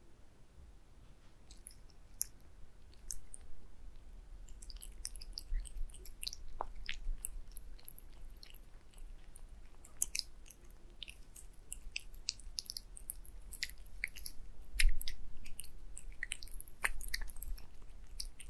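A tabby cat eating wet cat food with egg yolk from a glass plate: wet smacking, licking and chewing clicks, sparse at first and then dense and irregular from about four seconds in. One louder thump comes late on.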